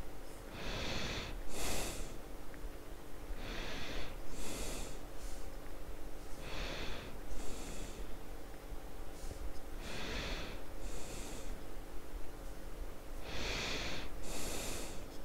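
A person breathing heavily and loudly, about five slow breaths roughly three seconds apart, each a two-part hiss of air close to the microphone.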